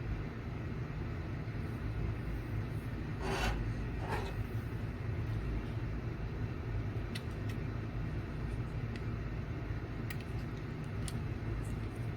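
Steady low background rumble, with two brief scrapes about three and four seconds in and a few faint small clicks later, as a DIP chip's pins are bent and the chip is handled over the circuit board.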